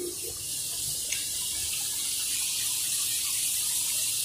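Wonton skins deep-frying in hot oil in a wok: a steady sizzling hiss with a few faint crackles.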